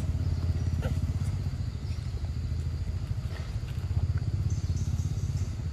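A steady low engine drone, like a motorbike engine idling, with a few faint short clicks and faint high chirps over it.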